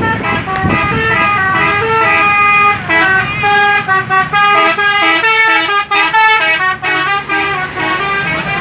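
Bus 'telolet' musical horn playing a quick tune, its tones stepping up and down several times a second, breaking into a choppy run of short blasts in the second half, over the low running of the bus engine.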